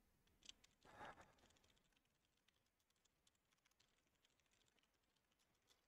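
Faint computer keyboard typing: soft, scattered key clicks, very quiet, with a brief soft noise about a second in.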